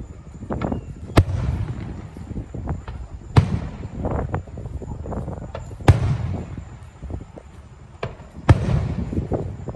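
Fireworks going off: four sharp bangs about two and a half seconds apart, each followed by a rolling echo, with smaller pops and crackles between them.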